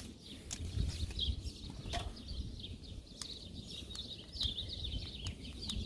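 Small birds chirping repeatedly in the background over a low outdoor rumble, with a few faint clicks from handling.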